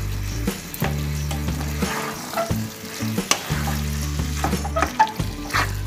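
Taro stems and stalks sizzling as they fry down in a nonstick pan, with a spatula stirring and scraping through them in irregular strokes.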